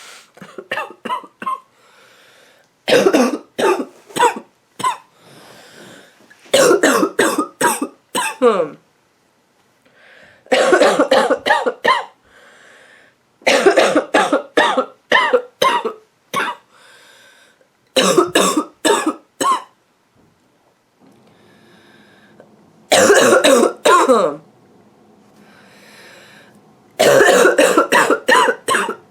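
A woman's nasty, barking cough: about eight fits of several quick, harsh coughs each, a few seconds apart, with breaths drawn in between.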